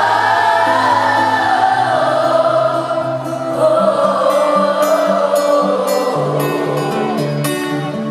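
Live pop-rock band music with a sung, choir-like melody from many voices over held bass notes; light percussion ticks come in about halfway through.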